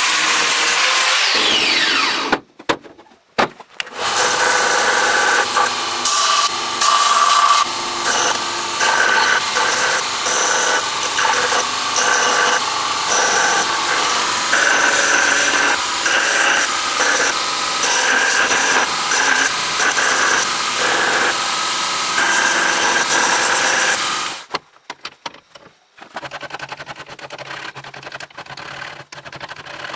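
Angle grinder grinding rust off a steel hammer head, cutting out about two seconds in. A belt grinder then grinds the steel, its pitch rising and falling as the workpiece is pressed on and off the belt. After about twenty seconds it stops, and a hand file rasps across the steel held in a vise in short strokes.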